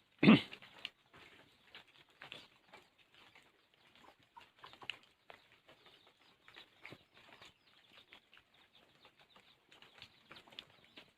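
Rainwater dripping and pattering in irregular light taps, with one loud thump just after the start.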